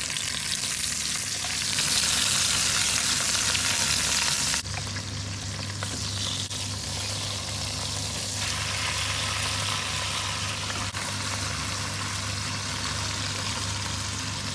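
Lamb browning in hot fat in an enamelled cast-iron pot, sizzling steadily. The sizzle is loudest over the first few seconds, drops a little with an abrupt change about four and a half seconds in, then carries on with a low steady hum beneath it.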